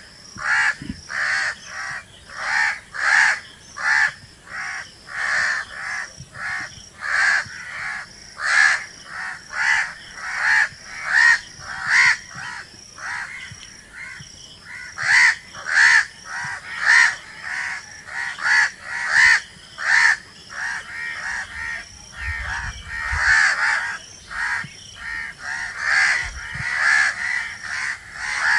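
Crows cawing over and over, harsh short caws about once or twice a second with a brief lull about halfway through.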